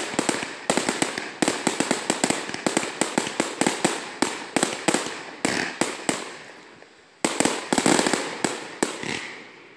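Fireworks display: rapid volleys of sharp bangs, three or four a second, thinning out about seven seconds in. A fresh volley follows and fades away near the end.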